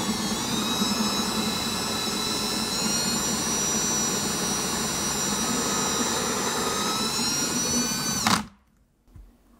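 Electric drill running as a twist bit bores a blind hole into aluminum round stock: a steady motor whine that sags slightly under load near the start, then winds down in pitch and stops about eight and a half seconds in.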